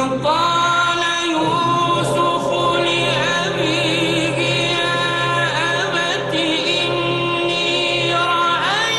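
Title-theme music: singing in long held notes that waver and slide in pitch, over a steady low drone.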